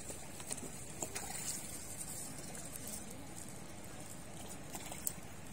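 Steady outdoor hiss with faint distant voices and a few light clicks.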